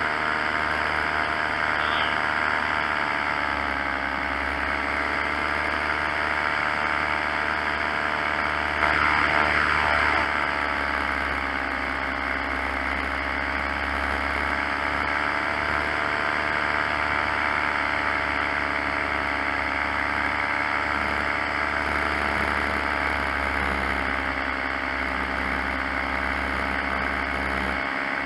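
Paramotor engine running steadily in flight, its pitch sagging and recovering slightly a few times. A brief louder rush of noise comes about nine seconds in.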